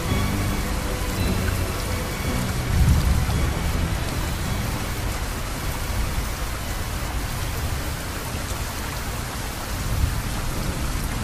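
Steady heavy rain, with a low rumble of thunder about three seconds in. Faint music fades out in the first few seconds.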